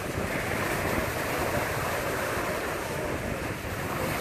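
Wind-driven lake waves breaking and washing up on the shore in a steady surf, with wind buffeting the microphone.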